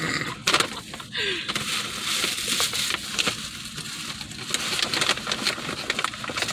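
Tissue paper and a paper gift bag rustling and crinkling as they are handled and pulled apart.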